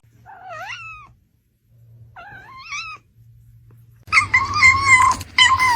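Cat meowing: two short meows that bend up and down in pitch, then about four seconds in a loud, long meow that slowly falls in pitch.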